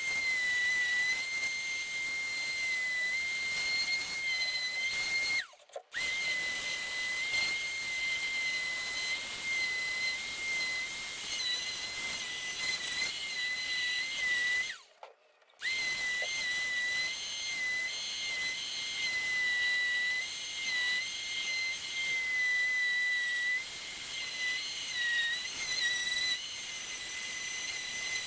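Power sander running steadily with a high, slightly wavering whine and a light hiss, sanding down the filler on a car dashboard repair. It cuts out abruptly twice.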